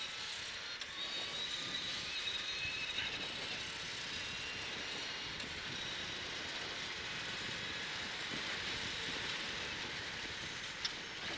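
Cross-country rally car driven at speed on a gravel road, heard from inside the cabin: a steady rush of engine, tyre and gravel noise with a faint high whine, as the car shifts up through the gears. A brief click comes near the end.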